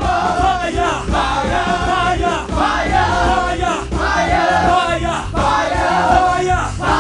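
Live gospel worship music: voices singing over a band with a steady beat, in short phrases repeated about every second or so.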